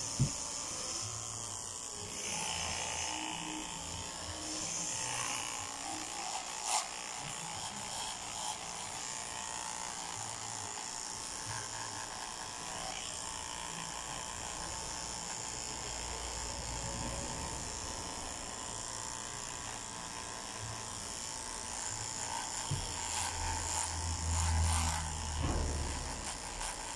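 Electric dog clippers running steadily, buzzing as they shave through a Maltese terrier's coat, with some low rumbling near the end.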